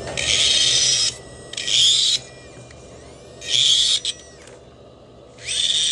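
Dental micromotor handpiece with a bur grinding on a milled chrome-cobalt framework held in its disc: four short bursts of high-pitched grinding, each under a second, with pauses between.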